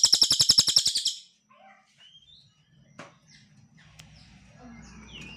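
Cililin songbird singing: a loud, rapid trill of about sixteen notes a second that stops about a second in, followed by quieter scattered short chirps and whistled notes.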